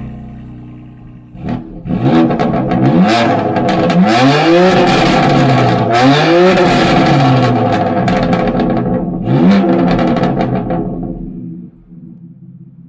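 BMW M2 Competition's S55 twin-turbo inline-six through an M Performance exhaust, revved hard several times, the pitch climbing and falling back with each rev. The sound dies away near the end.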